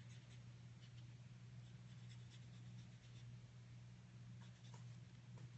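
Near silence: faint, light scratchy strokes of a pen-style brush on watercolour paper, over a steady low hum.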